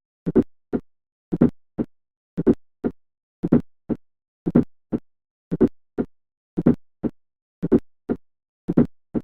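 Heart sounds with a fourth heart sound (S4 atrial gallop): an extra sound just before each first heart sound, then the second heart sound, repeating about once a second. An S4 is the sign of the atria contracting into a stiff, non-compliant ventricle.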